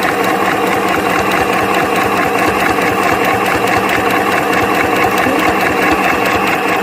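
Singer M1005 electric sewing machine running steadily at speed as it stitches cloth, its motor whirring under the fast, even clatter of the needle.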